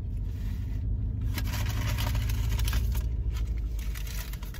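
Steady low hum of a car's idling engine heard inside the cabin, with two stretches of rustling and handling noise, like a food wrapper being handled.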